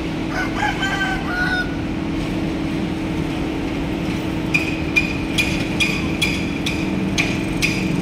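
A rooster crows once near the start. From about halfway through, a regular metallic knocking, about two or three ringing strikes a second, comes in over a steady low hum.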